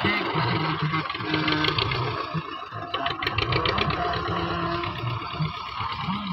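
Belarus tractor's four-cylinder diesel engine running steadily.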